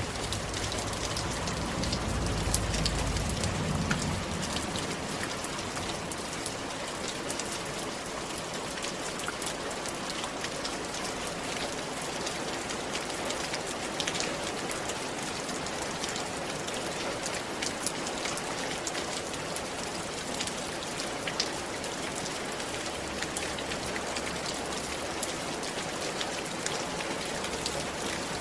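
Steady rain falling on a roof, with many individual drops ticking throughout. A low rumble swells and fades about two to four seconds in.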